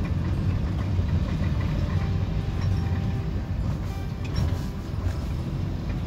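Steady low rumble of engine and road noise inside a moving car's cabin.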